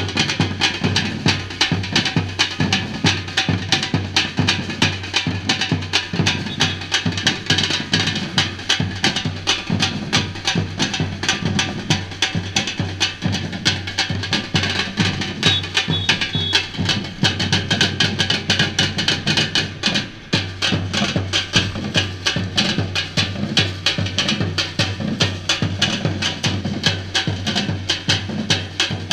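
Samba-reggae drum band playing a dense, fast, steady rhythm of deep bass drums and sharp snare and wood-like strokes, with a brief dip about twenty seconds in.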